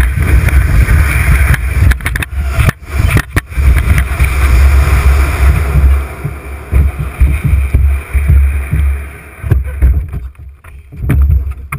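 Canoe hull sliding over snow down a hill: a steady scraping hiss over a strong low rumble that fades after about six seconds and breaks up into scattered knocks near the end.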